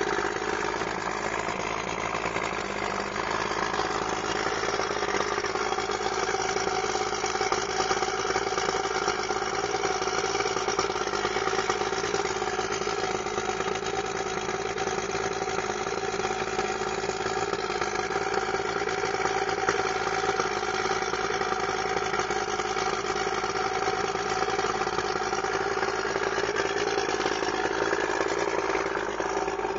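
1973 Chrysler 70 hp three-cylinder two-stroke outboard motor idling steadily.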